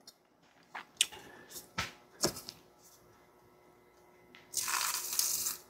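A few sharp metallic clicks and knocks of tools on a rusted bolt, then near the end about a second of hissing from an aerosol can of penetrating fluid sprayed onto the seized bolt.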